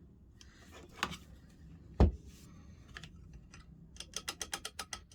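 Tools and parts being handled on a workbench: a knock, then a loud thump about two seconds in, then a quick run of about eight sharp clicks near the end.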